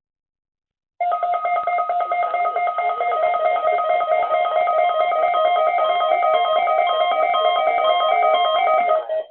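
Electronic tones playing a rapid, repeating melody of short stepped notes, starting about a second in and giving way near the end to a single lower tone pulsing rapidly, as the opening of a mock weather-radio alert.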